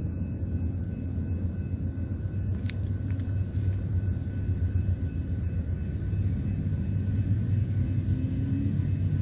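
Amtrak GE P42DC diesel locomotives running with a deep, steady rumble, with an engine tone starting to climb near the end.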